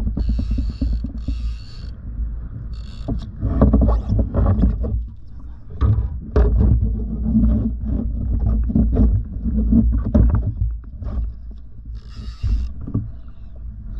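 Fishing kayak on open water: a heavy low rumble of wind buffeting the microphone, with many short knocks and a few brief hissing bursts.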